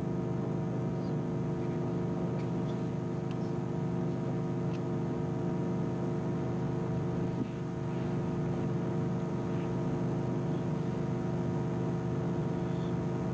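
A steady hum made of several fixed tones, with faint scattered clicks now and then.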